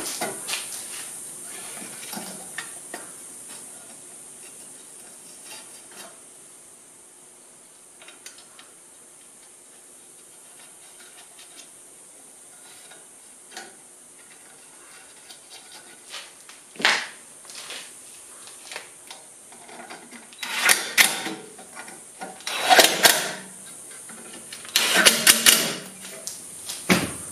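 Metal guard and shield bracket being handled and bolted onto a bench grinder that is switched off: scattered light clicks, then several louder clattering bursts in the second half.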